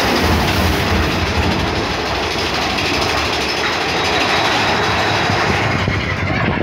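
Mine-train roller coaster cars of Big Thunder Mountain Railroad running along the track: a loud, steady, dense rattle that carries on without a break.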